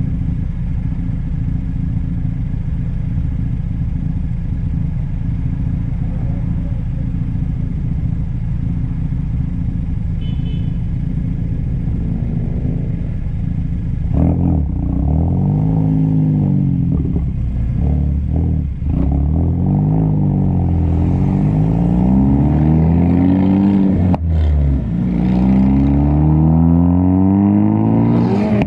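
Ford Focus ST engine through a catless downpipe and muffler-delete exhaust: a steady low drone, then from about halfway the pitch climbs and drops back several times as the engine revs up and falls off. Two sharp cracks come as the revs drop, the pops the crackle tune is set up to give.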